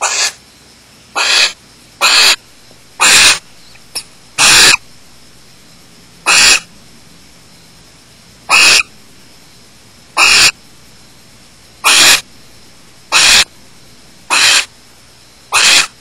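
Barn owls in a nest box giving harsh, hissing screech calls: about a dozen short calls, each roughly a third of a second long, repeated every one to two seconds.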